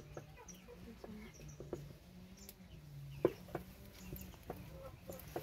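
Scattered light clicks and knocks, one sharper knock a little past the middle, over faint voices in the background.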